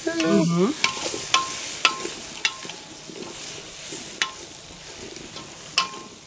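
Chopped vegetables sizzling in a steel kettle hung over a wood fire, stirred by hand, with about six sharp clinks as the stirring tool knocks the pot, each clink ringing briefly.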